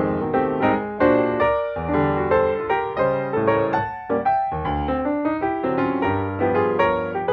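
Background piano music: a flowing run of struck notes and chords, each note ringing and dying away.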